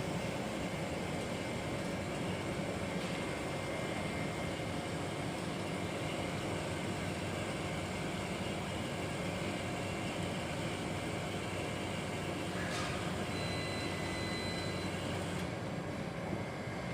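Steady running noise of machinery, an even hum and hiss. About thirteen seconds in there is a short click, followed by a faint high tone lasting about a second and a half.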